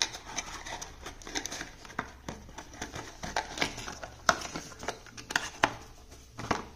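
White cardboard packaging being handled: a card insert folded and box pieces shifted, with irregular rustling and scattered sharp taps and clicks of card against card.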